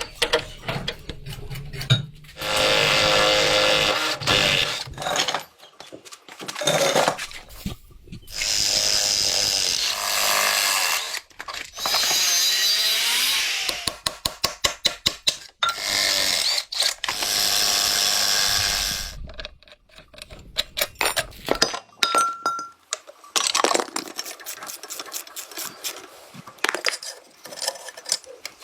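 Power tools running in bursts of two to three seconds each, separated by rapid ticking and knocks, followed by lighter scattered tapping and clinking of tools.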